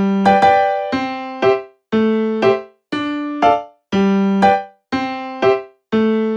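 Background keyboard music in a bouncy, regular rhythm: a held note followed by a short stab, repeating about once a second.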